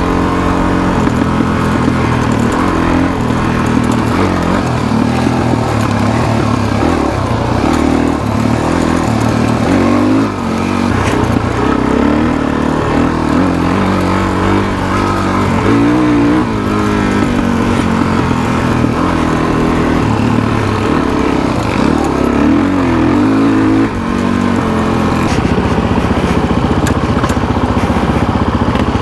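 Suzuki DR-Z400SM's single-cylinder four-stroke engine running under way on a dirt trail, its revs rising and falling again and again with the throttle, with two brief drops in loudness, about ten seconds in and again a little past twenty.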